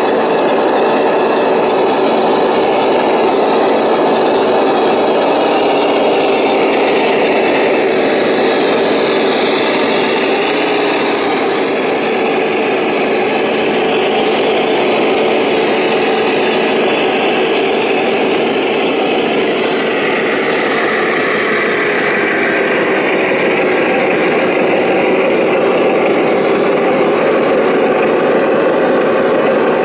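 Radio-controlled model trucks, an 8x8 MAZ-537 towing a Scania 6x6, driving. Their motors and gearboxes give a steady mechanical whine, with higher whines that rise and fall in pitch as the speed changes.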